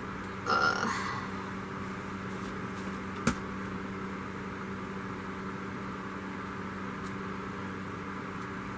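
Steady low electrical hum, with a short rustle about half a second in and a single sharp click a little over three seconds in.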